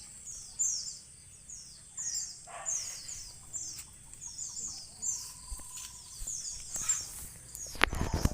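Rapid series of high, downward-sliding chirps from white-eyes (pleci), two or three a second, over a steady high whine. A loud thump comes near the end.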